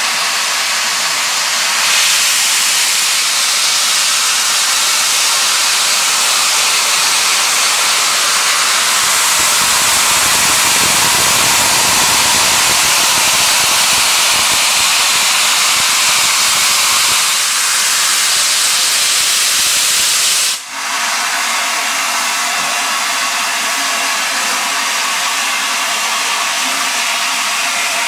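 Three-cylinder Peppercorn A1 steam locomotive 60163 Tornado blowing off steam with a loud, steady hiss from its open cylinder drain cocks. The hiss is fuller for a while in the middle and breaks off for an instant about two-thirds of the way through.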